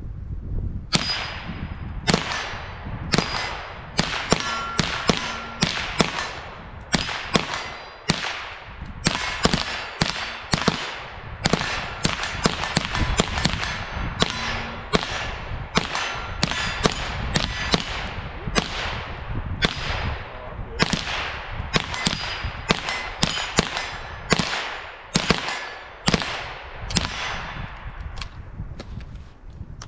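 Handgun gunfire: dozens of shots at an uneven pace, some fired in quick strings, with a brief metallic ring after some of them.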